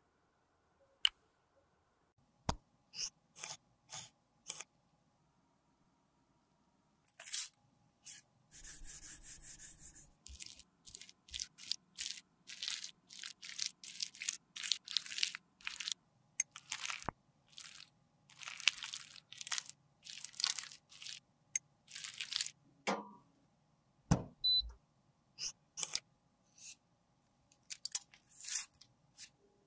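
Close-miked handling sounds: a few sharp taps and clicks, then many short scraping strokes of a metal blade over soft lipstick, one after another.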